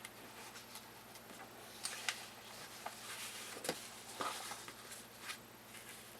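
Faint, scattered small clicks and light rustles from handling the loose paper pages of an old comic book, over low room hiss.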